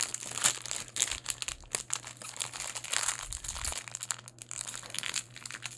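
A foil blind-bag toy packet being crinkled and torn open by hand: an irregular run of crackles and rustles.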